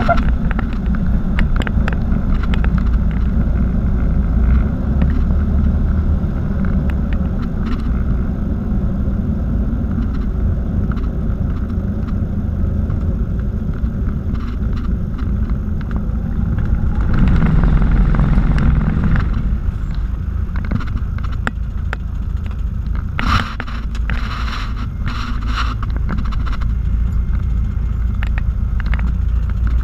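Light single-engine aircraft's engine and propeller drone heard from inside the cockpit on final approach to landing. The drone swells for a couple of seconds a little past halfway, and a few short, higher-pitched sounds come and go a few seconds after that.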